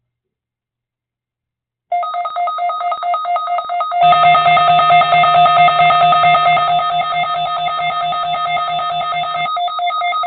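Emergency alert attention tone: a loud electronic alarm of two steady pitches with a rapid flutter, starting about two seconds in. About two seconds later it grows louder as a low buzz joins it, and the buzz drops out near the end.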